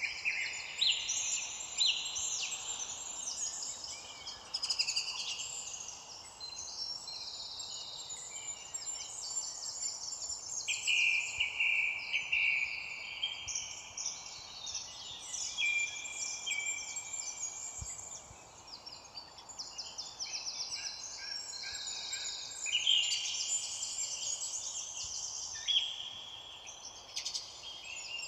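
Several songbirds singing at once, a dense, continuous mix of overlapping chirps and rapid trills, over a faint steady background hiss.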